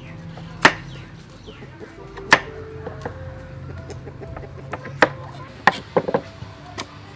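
A large kitchen knife chopping through pumpkin onto a thick wooden chopping block: about six sharp chops, a second or more apart, coming quicker near the end. Chickens cluck in the background.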